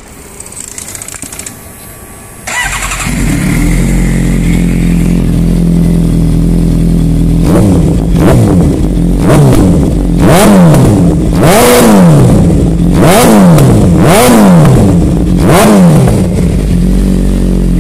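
Suzuki GSX-R750's inline-four with a Brock's aftermarket exhaust being started, catching about two and a half seconds in and idling. From about halfway it is blipped repeatedly, about seven quick revs, then settles back to idle. The exhaust is very loud because the catalytic converter is not fitted.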